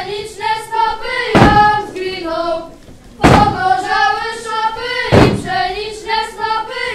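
A group of children singing a carol in unison, with three heavy thumps on a wooden stage floor about two seconds apart, keeping time with the song.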